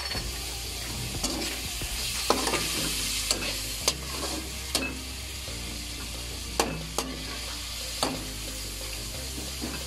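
Chicken pieces and chicken liver sizzling in a metal wok while a slotted metal spatula stirs them, with sharp clinks of the spatula against the pan about once a second.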